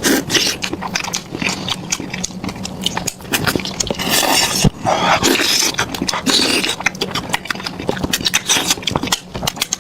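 Close-miked wet chewing and lip-smacking of soft lamb tripe and brain. There are many quick clicks, with a couple of longer, hissier sounds about four and five seconds in.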